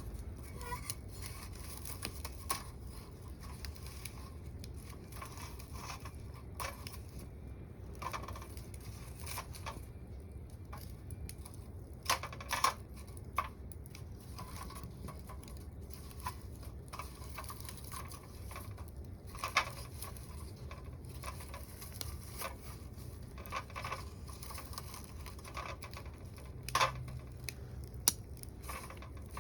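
Wood fire crackling in a small secondary-combustion camp wood stove: scattered sharp pops and snaps of burning sticks over a low steady rumble, with a few louder pops a little under halfway and again near the end.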